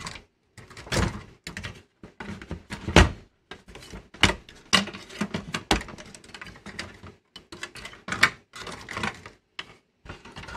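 Irregular clicks, knocks and rustling from hand work inside an opened VCR: wiring harness connectors being unplugged and cables pulled loose, with plastic and metal parts of the chassis bumped and shifted.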